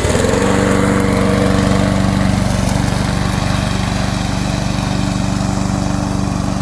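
Single-cylinder four-stroke Loncin 224cc gasoline engine of a remote-controlled mower, just started on its electric starter and running steadily at an even pitch.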